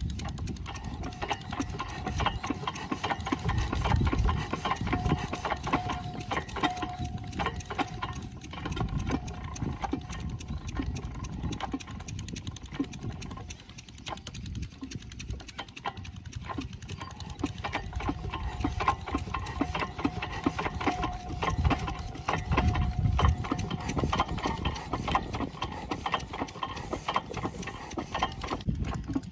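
8 hp diesel water-pump engine running with a rapid, even knocking beat, swelling louder twice, with a thin whine coming and going above it.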